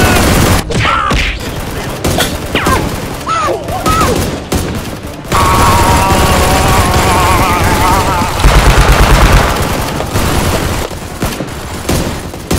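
Action-movie gunfire sound effects: volleys of rapid shots, with a fast rattle of automatic fire, about ten shots a second, around two-thirds of the way through.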